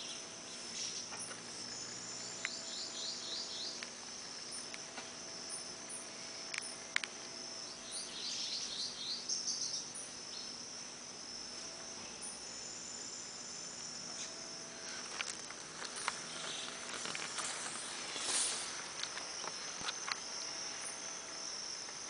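Steady high-pitched chorus of insects, with a few bird calls made of quick runs of short falling notes and scattered clicks.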